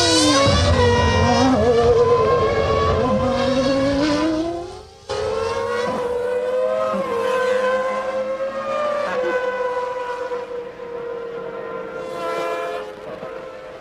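Formula One car engines at high revs, their pitch rising and falling through gear changes, with an abrupt cut about five seconds in. After the cut, one engine holds a fairly steady high pitch that gradually fades.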